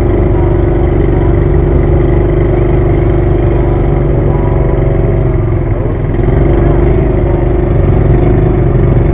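An engine running steadily and loudly close by, with a brief dip about six seconds in.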